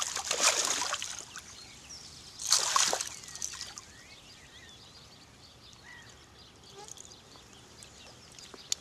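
Water splashing as a hooked asp thrashes at the water's edge and is grabbed by hand: a burst of splashing in the first second and a shorter one about two and a half seconds in, then quieter.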